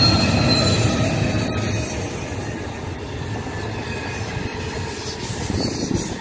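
A diesel-hauled passenger train passing close by. Its locomotive goes by in the first couple of seconds with a loud rumble and steady whining tones, then the stainless-steel carriages roll past with a quieter, steady rumble of wheels on the rails.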